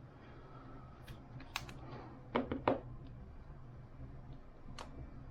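A few light clicks and taps from trading cards being handled, with three quick ones close together about halfway through, over a low steady hum.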